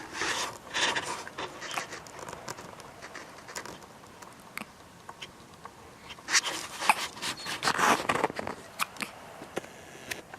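Repeated hiccups: short, sudden hic sounds at uneven intervals, with several of the loudest coming close together about two-thirds of the way through.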